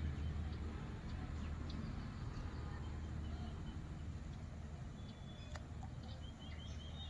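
Outdoor ambience at the pond edge: a low steady rumble with short, high bird chirps scattered through it, and a single sharp click a little past five seconds in.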